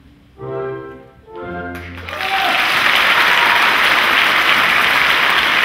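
Orchestral music ends on two short closing chords, then audience applause breaks out about two seconds in and carries on loudly.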